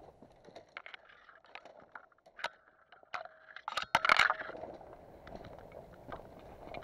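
Footsteps crunching and scraping through dry undergrowth, with scattered sharp snaps and a louder rustling cluster about four seconds in.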